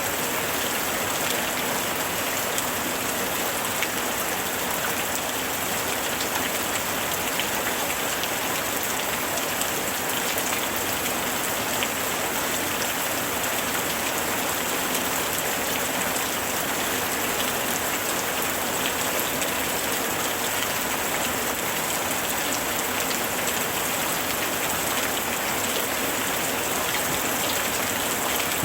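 Steady summer rain falling on a surface, a dense even hiss with many small drop ticks.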